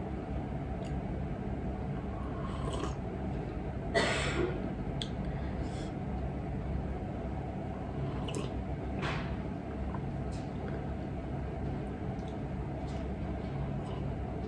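Sips and slurps of hot green tea from a cup: the loudest about four seconds in, then several quieter ones, over a steady low room hum.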